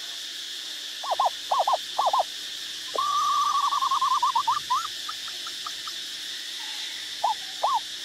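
Asian barred owlet calling. First come three quick pairs of short arching notes, then a long bubbling trill that rises slightly and breaks up into separate notes, then a few single notes near the end. A steady high insect hiss runs beneath.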